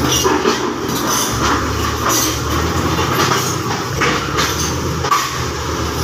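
Komatsu bulldozer's diesel engine running steadily under load, with repeated clanking and clattering from its steel tracks and the rock it works, and a wheel loader's engine running alongside.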